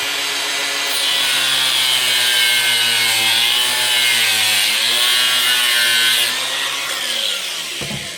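A small power tool cutting through the plastic top of a car battery, its motor running steadily and dipping in pitch as it bites, then winding down near the end.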